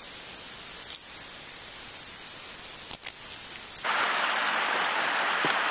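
Steady hiss of running water from a small spring-fed stream, stepping up louder and brighter about four seconds in, with a couple of sharp clicks about three seconds in.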